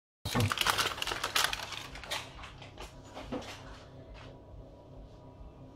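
A rapid run of small clicks and rattles for about two seconds, then a few separate clicks: kitchen items being handled.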